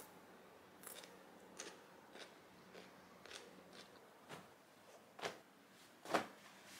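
Faint handling sounds: light, scattered clicks and rustles a couple of times a second, the loudest two near the end.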